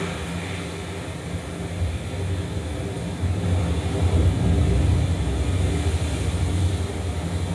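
Low rumbling ambient drone from the installation's soundscape: steady deep tones under a soft hiss, swelling louder about halfway through and easing off near the end.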